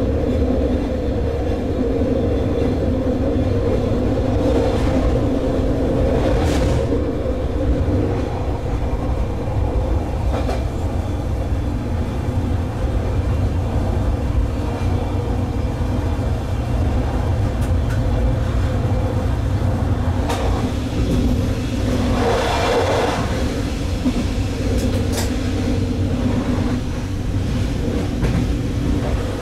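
GTW 2/6 diesel multiple unit running at speed, heard from the driver's cab: a steady drone from its diesel engines over the rumble of wheels on rail. It is broken by a few brief louder rushes of track noise, the biggest near the end.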